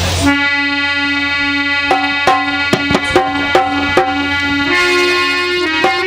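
Harmonium playing a sustained reedy held note that steps up in pitch near the end. About two seconds in it is joined by a hand drum striking a rhythm, the instrumental opening of a folk song.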